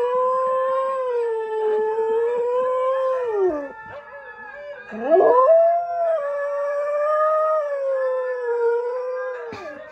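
Siberian husky howling: one long held howl that drops off about three and a half seconds in, then after a short pause a second howl swoops up and is held, wavering a little, until it falls away near the end.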